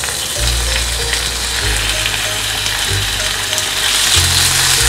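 Chopped raw boneless chicken sizzling and crackling in hot oil with onion and garlic in a frying pan, stirred with a wooden spatula.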